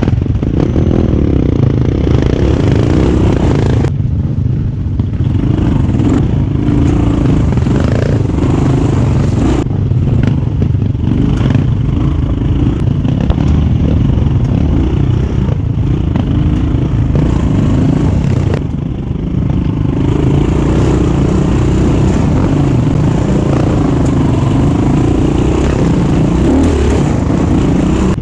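GPX 250 enduro motorcycle engine running while riding, its pitch rising and falling with the throttle, with rattling from the bike.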